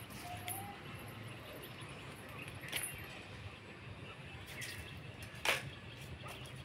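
Quiet outdoor background with a few light clicks and knocks from handling a .177 air rifle, the loudest a sharp click about five and a half seconds in. A short chirp near the start.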